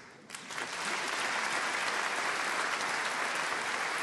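Audience applauding: the clapping starts about half a second in, swells quickly and then holds at a steady level.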